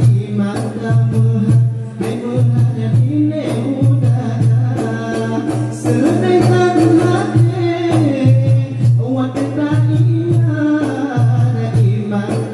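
Rapai Aceh performance: a male voice sings a flowing, ornamented melody over two rapai frame drums struck in a steady, driving beat.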